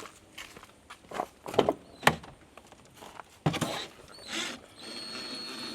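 Knocks and clicks of hand tools and hardware as car speakers are unscrewed from their mounts, the loudest a few sharp knocks in the middle. About five seconds in, a steady motor whine starts, like a power driver turning screws.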